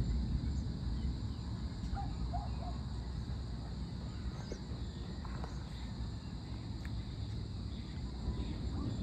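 Distant thunder rumbling low and dying away over the first second or so. After it, a steady high insect drone, like crickets, over a faint low rumble.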